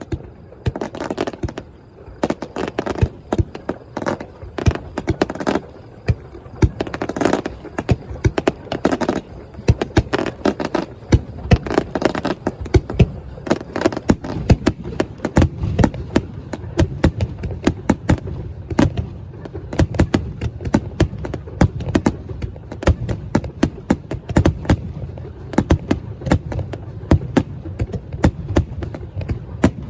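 Aerial fireworks bursting in rapid succession, many sharp bangs and crackles one after another, growing denser and heavier in the second half.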